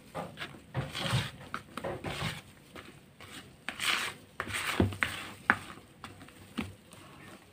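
Spatula scraping and folding a thick butter, sugar and egg-white cream by hand in a plastic basin: irregular scrapes, with a few sharp knocks in the second half.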